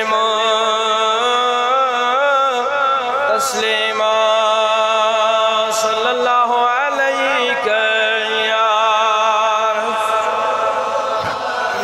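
A solo male voice chanting an Islamic devotional recitation in long held notes with wavering, ornamented pitch, broken by short pauses for breath.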